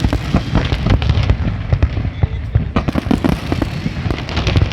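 Fireworks display going off in a dense barrage: many sharp bangs and crackles in quick, overlapping succession over a low rumble.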